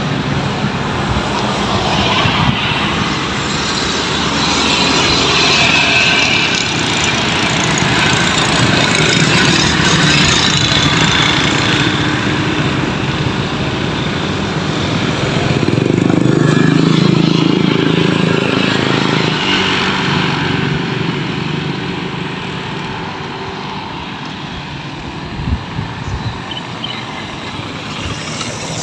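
Road traffic on a highway close by: motor vehicles passing, the noise swelling as they go by, loudest in the first half and around two-thirds of the way through, then easing off.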